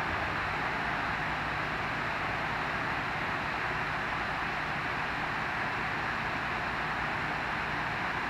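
Steady rush of river water below a dam, an even, unbroken sound that does not change.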